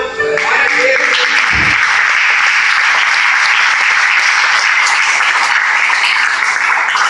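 Audience applauding, a dense steady clapping that takes over just as the music stops at the start.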